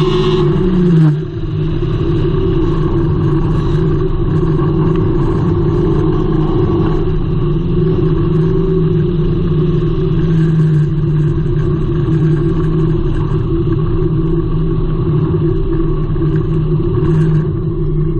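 Engine of a front-wheel-drive hornet-class dirt track race car, heard from inside its cockpit while racing. It runs at steady high revs; its pitch drops about a second in, then holds steady.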